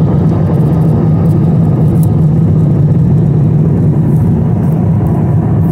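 Steady, deep rumble inside a jet airliner's cabin at cruise: engine and airflow noise heard from a window seat, unchanging throughout.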